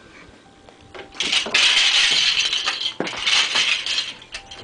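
Large plastic toy building blocks clattering and rattling as a toddler rummages through a pile of them, starting about a second in.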